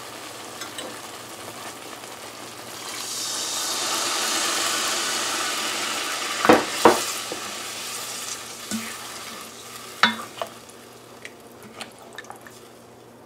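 Water poured into a hot pot of mango pieces cooking in thick sugar syrup sizzles: a broad hiss swells a couple of seconds in, peaks and dies away over several seconds. The spoon then stirs and knocks against the pot a few times.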